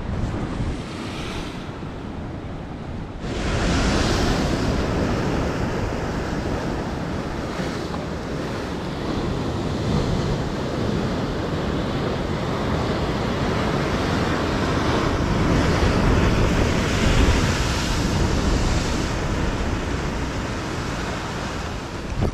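Ocean surf breaking and washing over rocks, with wind on the microphone. It jumps suddenly louder about three seconds in, then swells and ebbs with the waves.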